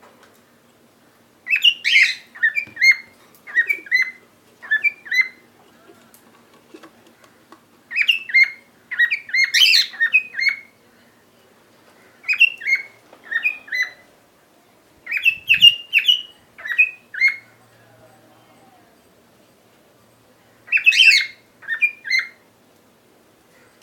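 Cockatiel chirping in about five bouts of quick, repeated short chirps, with pauses between the bouts; the owner takes this chirping as a sign that the bird is happy.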